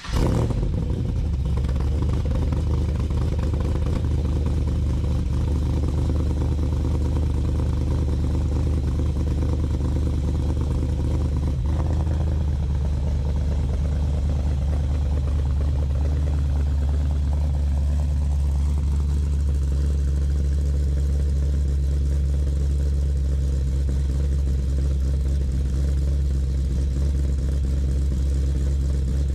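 Car engine catching as it starts, then idling steadily.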